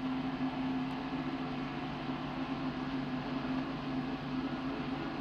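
Steady low hum over an even hiss: the background noise of an old lecture recording.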